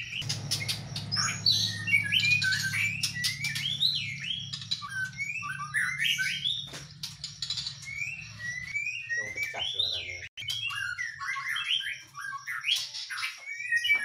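White-rumped shamas of the Medan type singing in their cages: a busy, varied string of short whistles, slurred rising and falling notes and harsh chattering notes, over a low hum that fades out about two-thirds of the way through. The owner says their song has not yet fully 'broken', meaning the birds are not yet in full song.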